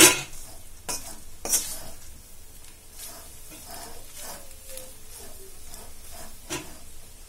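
A metal spoon scraping and stirring grated coconut around a steel pan, with ghee sizzling underneath as the coconut roasts. There are repeated short scrapes and a few sharper clinks, one right at the start and others about a second and a half in and near the end.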